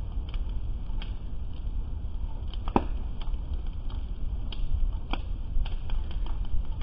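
Burning motorboats crackling and popping: irregular sharp cracks over a steady low rumble, with one louder crack a little under three seconds in.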